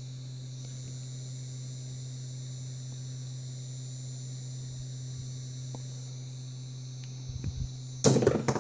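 Steady low electrical hum with a faint high hiss. Near the end comes a short, loud clatter of several knocks.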